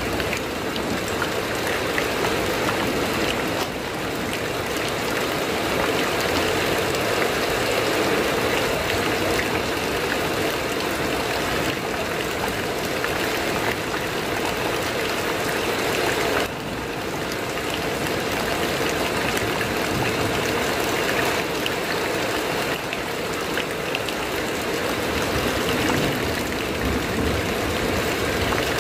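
Heavy rain falling on a corrugated metal roof, a steady, even hiss of drops, with a brief dip in level about 16 seconds in.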